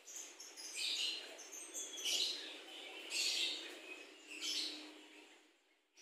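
Javan myna calling: four short, high calls about a second apart.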